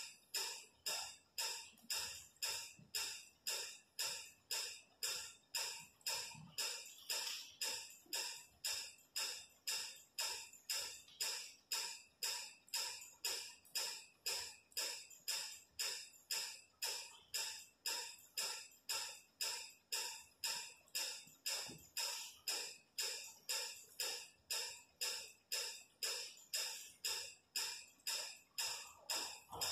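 A steady, evenly repeating percussive beat, about five pulses every two seconds, each sharp at the start and quickly fading, unchanged throughout.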